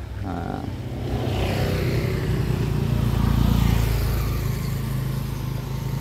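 A motor vehicle engine running nearby, growing louder to a peak about three to four seconds in and then easing off as it passes.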